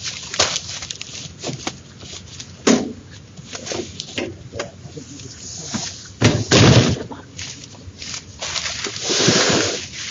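Irregular knocks and clatters with one loud, heavy thump about six and a half seconds in and a longer rushing noise near the end: a portable generator being handled and moved.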